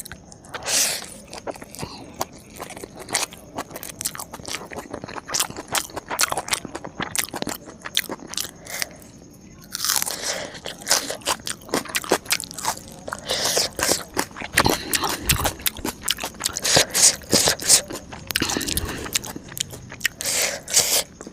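Close-miked eating: crisp food bitten and chewed in a dense run of crunches, easing off briefly about eight seconds in before picking up again.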